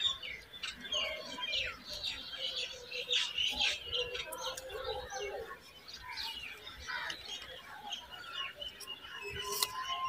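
Small birds chirping and twittering: many short, high calls in quick succession, with no let-up.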